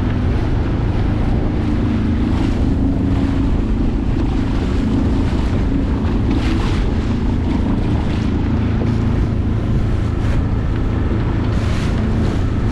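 A small sailboat's motor running steadily while the boat pushes through choppy water, with wind buffeting the microphone and waves splashing in several brief surges.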